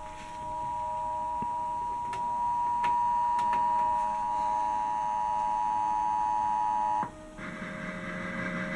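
Emergency Alert System attention signal: two steady tones sounding together (853 and 960 Hz), announcing a test tornado warning. It cuts off about seven seconds in, leaving a short stretch of hiss.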